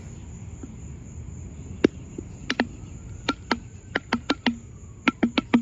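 A series of sharp clicks or taps, starting about two seconds in, sparse at first and then coming faster, over steady low background noise and a faint steady high tone.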